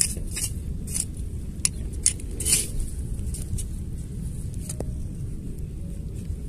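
Small hand rake with iron tines scratching through wet, clumpy beach mud while digging for a buried clam: scattered short scrapes and clicks, thinning out after about two and a half seconds, over a steady low rumble.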